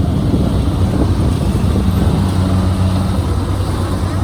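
Kubota DC-73 combine harvester running steadily while cutting rice, its diesel engine giving a steady low note under a broad mechanical noise.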